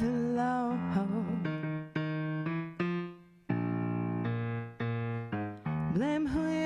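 Piano sound from a stage keyboard playing sustained chords in a slow instrumental passage, each chord struck and left to ring down before the next. A female voice holds a note at the start and comes back in with singing near the end.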